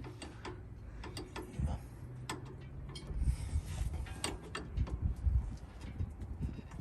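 Irregular light clicks and knocks of metal parts being handled while a bolt is fitted through the mount of a hydraulic steering-assist ram.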